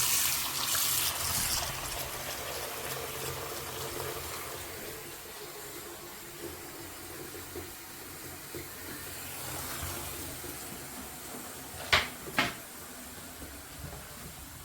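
Water running from a tap into a bathroom sink as it is filled, strongest in the first couple of seconds and then a quieter steady rush. Two sharp clicks come about twelve seconds in, half a second apart.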